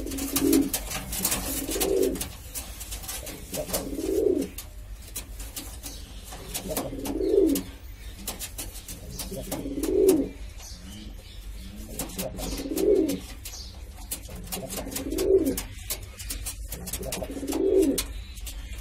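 Siraji pigeon cooing, a low coo repeated about every two to three seconds, with scattered faint clicks and scratches in between.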